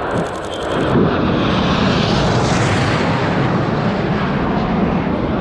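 Aircraft passing low and close overhead: a loud roar that swells about a second in, peaks near the middle and stays loud. A burst of rapid camera shutter clicks in the first second.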